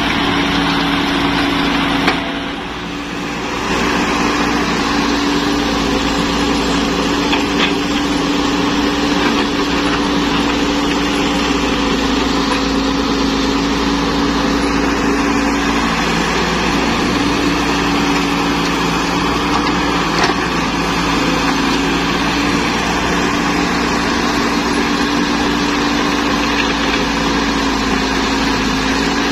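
Caterpillar E120B hydraulic excavator's engine running steadily under working load while it digs and swings, with a brief drop in the noise about two seconds in.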